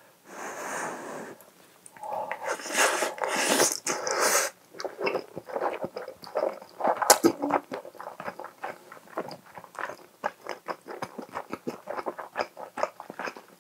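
Close-miked chewing of a mouthful of soft chicken, egg and rice: wet mouth smacks, several a second. The first few seconds are noisier and fuller as the spoonful goes in and the first chews begin.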